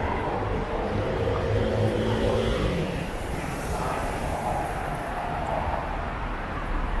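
Steady traffic noise from a busy city street, with one engine hum that drops in pitch and fades a little under three seconds in.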